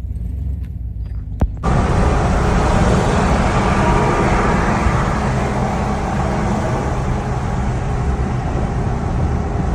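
Truck driving at highway speed: steady road and wind noise over engine rumble. It starts with about a second and a half of low rumble only, then a click and a sudden jump to the louder road noise.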